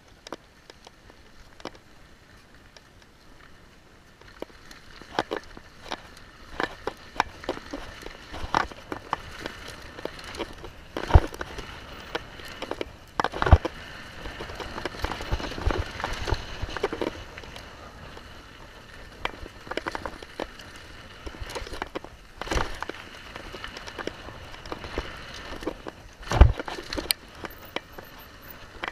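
Mountain bike riding down a dirt and gravel trail: tyres crunching over loose ground, with the bike clattering and knocking over bumps. The rolling noise gets louder about four seconds in, and several hard knocks stand out, the loudest near the end.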